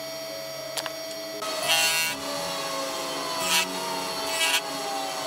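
A woodworking power tool running with a steady whine, cutting wood in three short bursts: the longest about a second and a half in, then two more in the second half.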